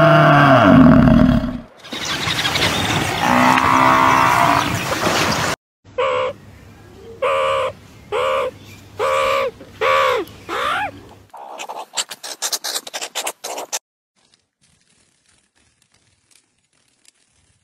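A string of different animal calls. First a loud pitched call, then a long rough drawn-out call, then about six short arched calls in a row. A rapid clicking follows, then it goes almost silent.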